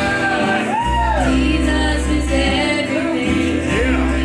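Live gospel music: singing voices over a band, with long held bass notes underneath.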